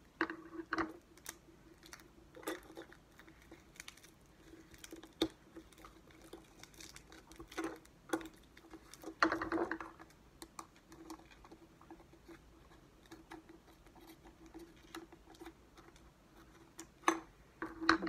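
Scissors snipping and trimming clear plastic contact paper, with the crinkle of the paper being handled: irregular sharp snips and clicks, a louder cluster about halfway through, over a faint steady low hum.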